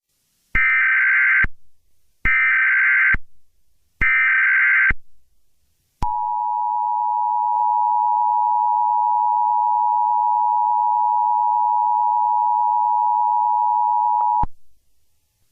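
Emergency Alert System alert opening: three short bursts of SAME header data, each a harsh digital screech of about a second, then the two-tone EAS attention signal held steadily for about eight seconds. It announces an emergency alert, here a severe thunderstorm warning.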